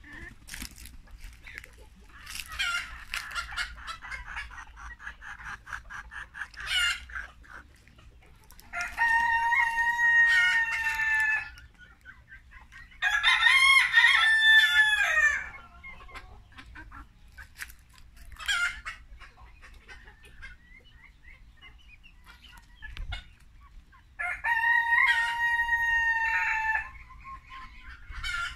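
Silkie chickens clucking and calling, with a rooster crowing three times: about a third of the way in, at about the middle, and again near the end. Each crow lasts two to three seconds.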